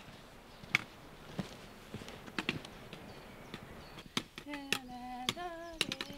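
Trekking pole tips tapping on stone steps along with footsteps: a string of sharp, irregular clicks. From about four seconds in, a person's voice joins, with a sustained pitched tone that wavers.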